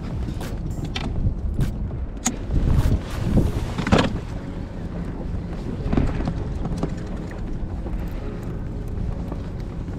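Wind buffeting the microphone, with a few knocks and clicks of fishing tackle being handled in the first seconds. From about halfway through comes the steady whir of a baitcasting reel winding in against a hooked fish.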